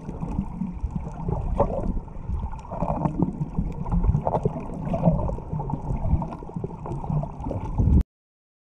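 Muffled water sloshing and gurgling picked up underwater while snorkelling, uneven and mostly low-pitched. It cuts off suddenly near the end.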